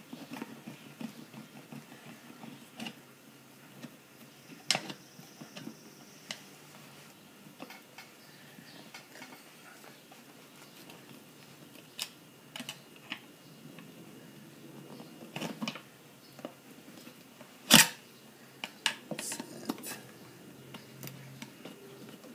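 Two screwdrivers prying a lawn mower tire's bead over its metal rim: scattered clicks and knocks of the tools against the rim, the sharpest one late on, followed by a quick run of smaller clicks.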